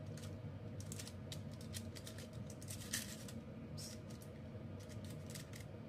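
Irregular soft clicks and scrapes as thick chocolate cake batter is poured from a mixing bowl into a paper-lined loaf pan, the loudest a little before halfway. A steady low hum sits underneath.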